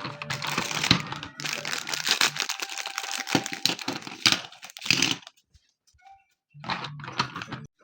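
Packaging being crinkled and torn open in dense, noisy bursts, with a pause of about a second near the end before more rustling.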